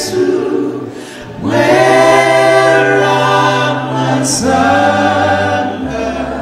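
Male vocal group singing a gospel song a cappella in harmony, in long held phrases with a short breath break about a second in.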